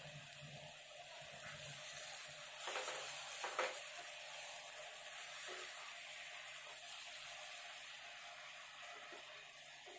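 Raw mango chutney bubbling and sizzling in a nonstick frying pan as it cooks down. A wooden spatula stirs through it, with a couple of soft knocks against the pan about three seconds in.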